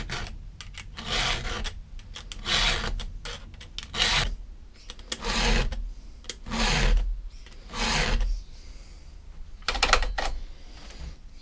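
Rasping strokes of a round file and a rag worked by hand along a chainsaw chain clamped in a vise, eight strokes in all, most about a second and a half apart.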